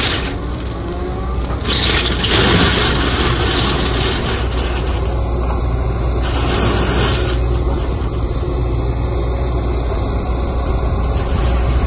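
Excavator-mounted Orsi TPF Piston forestry mulcher running, its rotor shredding brush and saplings over the steady drone of the Case excavator's diesel engine and hydraulics. The shredding surges louder about two seconds in and again a little past the middle.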